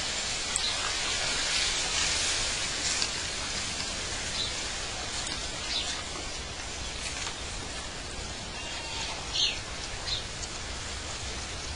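Outdoor ambience: a steady rushing hiss with a few short, high chirps scattered through it, the loudest about nine and a half seconds in.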